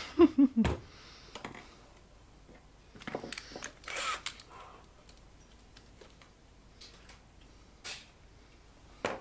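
Light clicks and rattles of small metal parts and a metal amplifier chassis being handled, as chassis punch parts are set up on it. The busiest cluster comes about three to four and a half seconds in, with single clicks near the end. A short vocal sound comes right at the start.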